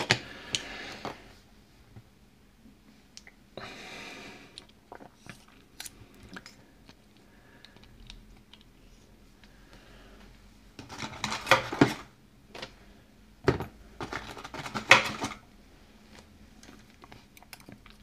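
Small clicks and knocks of a gutted brass pin-tumbler lock being handled: the core set down on a plastic pin tray and the cylinder housing picked up and worked. Two louder clusters of rattling knocks come in the second half.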